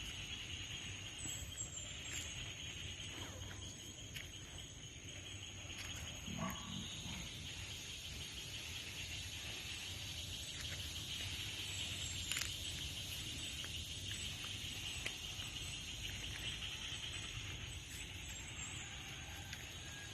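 Rural outdoor ambience: a steady high-pitched drone with a low rumble under it, and one brief low sound about six seconds in.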